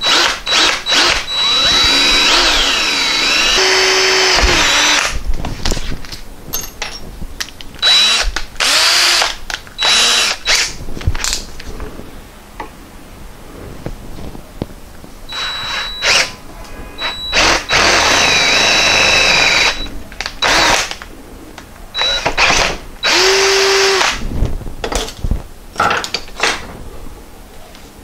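Cordless drill boring into a cast-iron pipe tee, first with a small pilot bit and then with a larger bit. The motor whine rises and falls in pitch with the trigger, in several runs of a few seconds separated by pauses.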